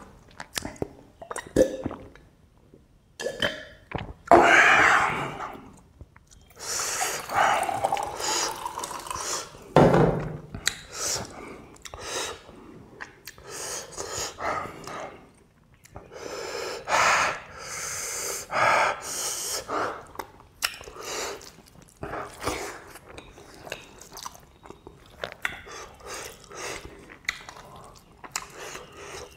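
Close-miked eating by hand: wet open-mouth chewing of rice, lip smacks and sucking on food-covered fingers, with breathing between mouthfuls. The sounds come in irregular bursts with short pauses.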